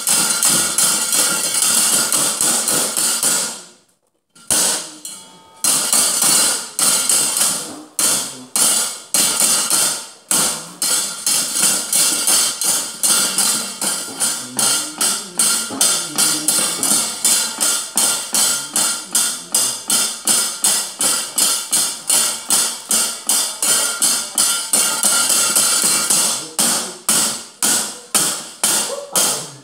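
A wayang dalang's keprak, the hanging metal plates struck in a fast, steady rhythm of about three clangs a second, over gamelan accompaniment. There is a short break about four seconds in, then the clanging resumes.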